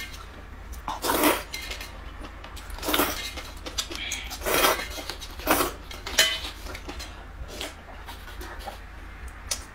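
A person slurping noodles and broth from a bowl: a run of short, loud slurps a second or two apart, with smaller eating sounds in the last few seconds.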